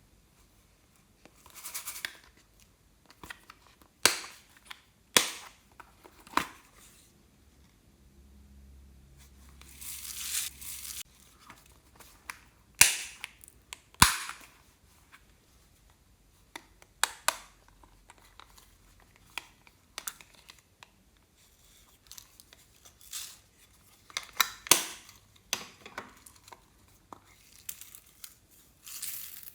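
Clear slime being handled and mixed by hand: scattered sharp pops and clicks, with a stretch of crinkling noise partway through.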